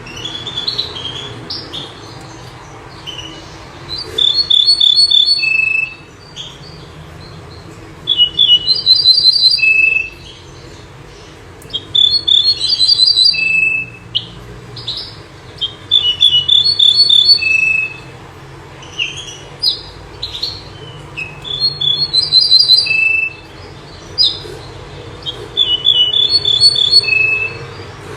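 A songbird of the kind known in Morocco as the bouh zerhouni or menyar sings a repeated song: phrases of about one and a half seconds come roughly every four seconds. Each phrase has quick, high repeated notes and ends on one lower held note. Under the song runs a steady low rumble.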